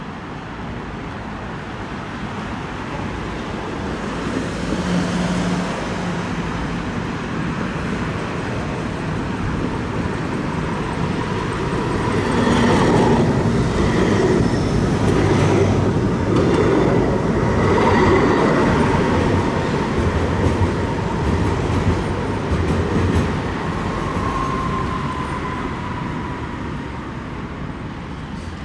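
Bombardier Eurotram low-floor tram approaching and passing close by, its wheels rumbling and clicking on the rails with a steady high whine. It grows louder, is loudest about halfway through, then fades as it moves away, with road traffic in the background.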